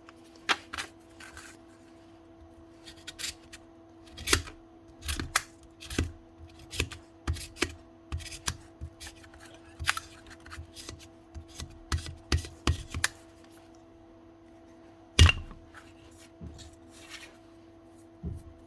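Irregular clicks, taps and knocks of small tool parts being handled and fitted, with one louder knock near the end, over a steady electrical hum.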